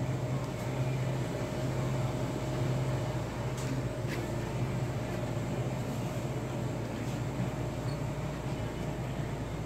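Steady low machinery hum of a shop's ventilation, with a constant faint tone above it and a few light clicks.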